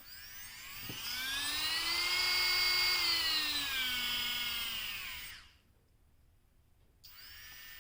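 Battery-powered WORX MakerX 20V rotary tool running with a high motor whine. It spins up to speed, winds down and stops about five seconds in, then starts again near the end at a lower, steady speed.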